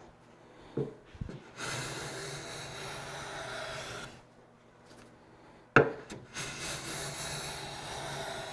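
Hand plane taking two long strokes along the edge of a hardwood panel, each a steady shaving hiss of two to three seconds. Sharp knocks come just before each stroke, the loudest about six seconds in.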